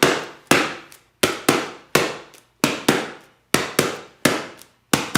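A small box played as a drum: sharp taps on it in a repeating rhythm, about eleven strikes, each dying away quickly.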